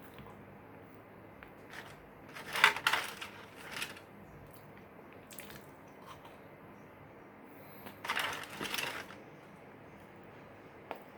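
Crunching of Butter Ring butter cookies being bitten and chewed, in two crackly bursts about six seconds apart.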